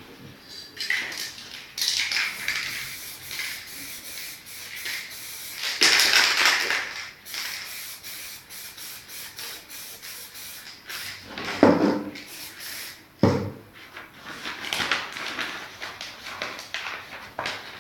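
Aerosol spray paint can hissing in short bursts, with rubbing and handling of paper over the canvas. There are two louder handling noises about two-thirds of the way through.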